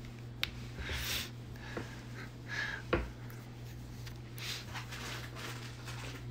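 Pembroke Welsh corgi puppy giving a few faint snuffling breaths, spaced a second or two apart, while held on its back, with a light knock about three seconds in, over a steady low hum.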